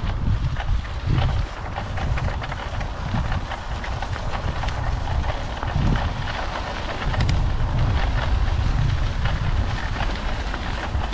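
Wind buffeting the microphone in an uneven low rumble, over a steady hiss with scattered small clicks.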